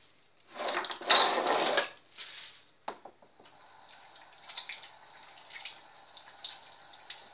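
Thin polyethylene bag crinkling loudly for about a second as it is knotted shut, then a kitchen tap running steadily with small splashes as hands are washed under it.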